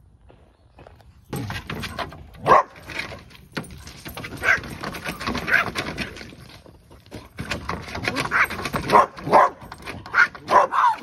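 A papillon and a neighbouring dog barking at each other, a rapid back-and-forth of sharp barks and yaps that starts about a second in.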